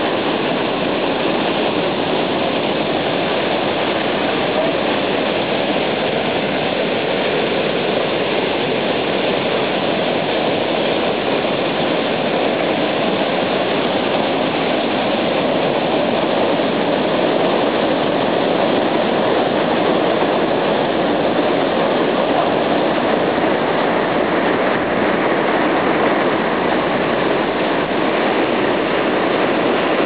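Waterfall and its mountain stream rushing over boulders: a loud, steady wash of falling and tumbling water that never lets up.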